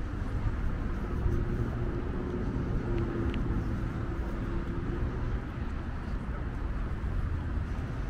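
Street traffic: a low, steady rumble of cars, with one vehicle's engine hum standing out from about a second in until past the middle.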